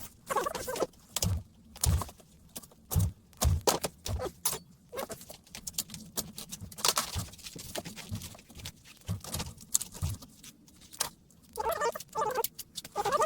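Hand tools working on a plastic laptop battery pack: irregular clicks, knocks and dull thuds, with short bursts of crackling plastic near the start and end.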